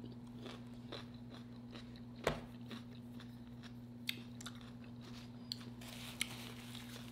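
Faint close-up chewing of a homemade nacho chip, with scattered crunches and mouth clicks. The strongest crunch comes about two seconds in, over a low steady hum.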